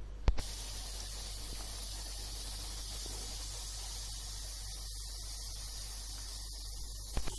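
Boondi batter dropping through a perforated ladle into hot ghee and frying with a steady sizzle. A sharp tap comes just before the sizzle starts, and another light tap comes near the end.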